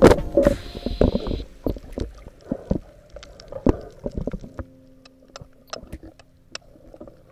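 Underwater sound heard through a diving camera: irregular sharp clicks and knocks over a low muffled wash, with a faint steady hum in the second half.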